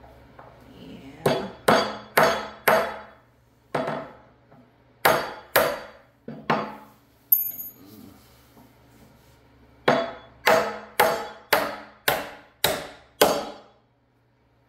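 Hammer driving nails into a reclaimed-wood bench top: sharp blows, each with a short ring, in runs of several strokes with pauses between. The longest run, about eight blows, comes near the end.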